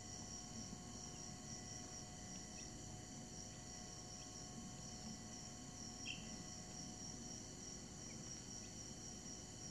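A few faint, short peeps from week-old chicks, the clearest about six seconds in, over a steady high-pitched whine and a low hum.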